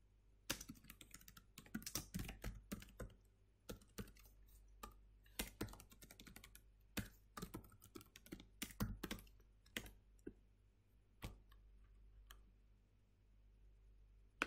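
Faint typing on a computer keyboard, quick irregular runs of keystrokes, thinning out to a few single taps after about ten seconds.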